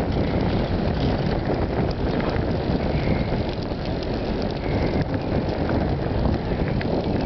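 Steady low rush of wind buffeting the microphone on a moving bicycle, with a few faint clicks and rattles.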